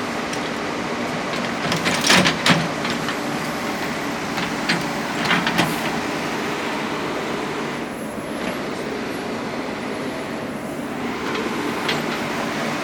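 Construction machine engine running steadily, with a few sharp metallic clanks about two seconds in, again around five seconds in, and once near the end.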